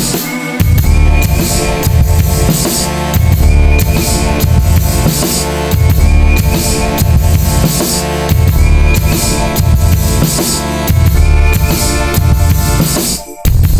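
Electronic dance music with a driving kick drum, heavy bass and snare, loud and steady; it cuts out for a split second near the end before the beat comes back.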